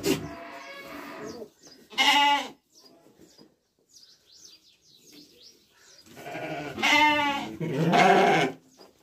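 Sheep (a ewe) bleating: a short, wavering bleat about two seconds in, then a longer bleat near the end.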